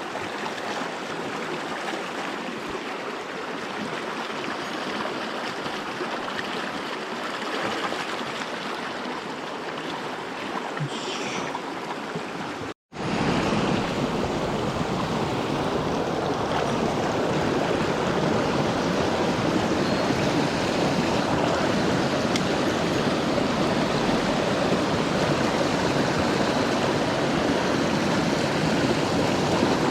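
Mountain stream running, a steady rush of water. About 13 seconds in it drops out for an instant and comes back louder and fuller.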